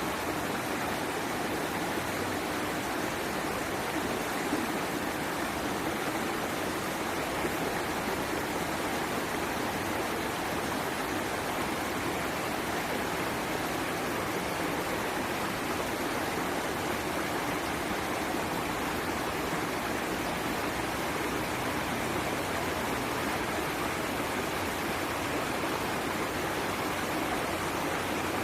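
Water flowing over rocks in a stream or small waterfall: a steady, even rush with no breaks.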